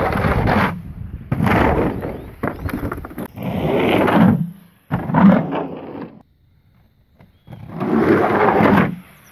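Inline skate wheels rolling over wooden plank ramps with a hollow rumble, in several separate runs broken by a second or so of quiet past the middle.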